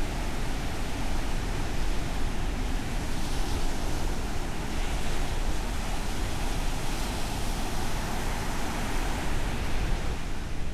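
Ocean surf washing onto a sandy beach as one steady, unbroken wash of waves, with a low rumble of wind on the microphone.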